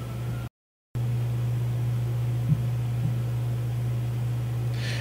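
Steady low hum with a faint hiss behind it: the background noise of the recording setup. It cuts out to dead silence for about half a second near the start, then carries on unchanged.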